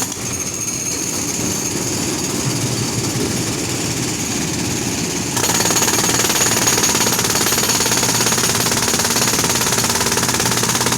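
Compressor-driven road drill hammering into the road surface with rapid, steady blows; it grows louder and brighter about five seconds in.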